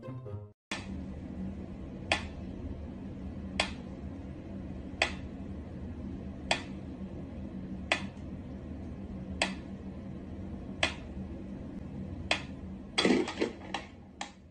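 Pyramid-shaped mechanical metronome ticking slowly and evenly, about one sharp tick every second and a half. Near the end comes a quick flurry of several knocks and a rattle.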